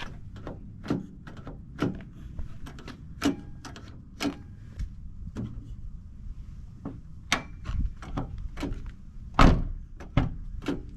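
Irregular knocks, clicks and thunks from working on a 2003 Toyota Tacoma's driver door as it is put back together, with a louder thunk about nine and a half seconds in.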